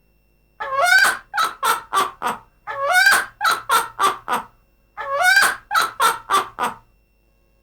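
Myna bird laughing: a long high 'haa' followed by four quick 'ha's, repeated three times. The pitch glides up and down.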